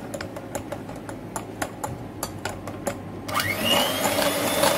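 Electric hand mixer beating ghee and powdered sugar in a glass bowl: at first sharp clicks come about four a second as the beaters knock the glass. About three seconds in, the motor whines up to speed and runs loudly and steadily.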